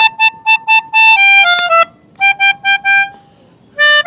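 Pianika (melodica) playing a telolet bus-horn tune: quick repeated staccato notes, a short falling run in the middle, then four more repeated notes and a final two-note call near the end.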